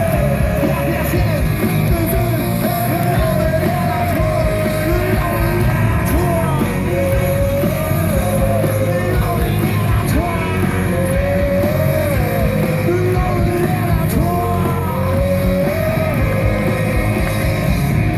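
German punk-rock band playing live through a festival PA, heard from within the audience: loud, steady guitars, bass and drums with a wavering melody line over them.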